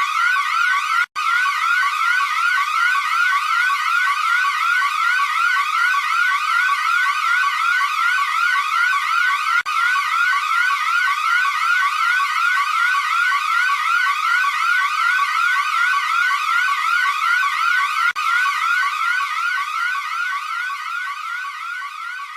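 Electronic emergency alert alarm tone: a short rising sweep repeated several times a second. It breaks off briefly about every eight and a half seconds and fades out near the end.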